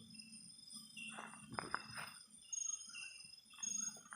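Night insect chorus of crickets, a steady high-pitched trilling, with a louder short high chirp repeating about once a second. A few rustles and clicks from movement come between one and two seconds in.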